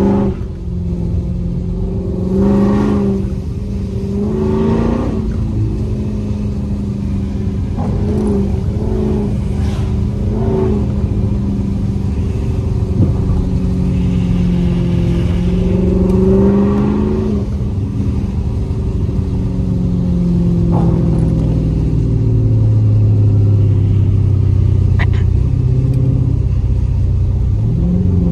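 A 392 (6.4-litre) Hemi V8 in a Dodge Charger being driven. It revs up twice in the first few seconds, then runs with its pitch rising and falling, and settles into a lower, steady drone for the last several seconds.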